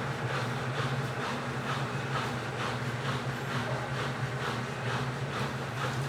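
Midea 12 kg washing machine running: a steady low motor hum with a regular swishing of the wash repeating two or three times a second.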